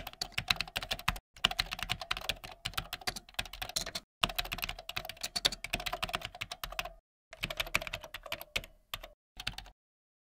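Keyboard typing sound effect: rapid key clicks in runs, broken by short pauses a few times and stopping shortly before the end.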